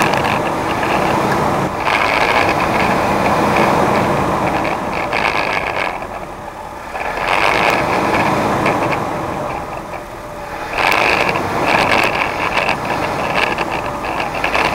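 Off-road rock-crawler engines running on a rocky trail, loud and rough, dipping twice in level about six and ten seconds in.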